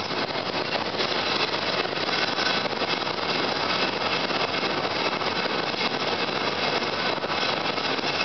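Steady vehicle running noise, an even rumbling hiss with no distinct knocks or horns.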